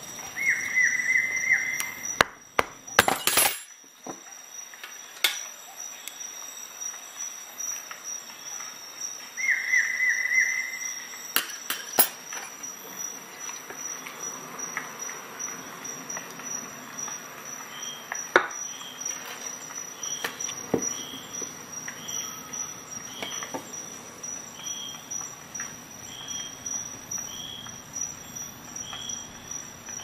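Victorinox Rescue Tool's serrated windscreen saw blade sawing a small block of wood in two short bursts of quick strokes, one about a second in and one about ten seconds in, with a cluster of sharp clicks from the tool between them. In the second half, faint short high chirps repeat about once a second.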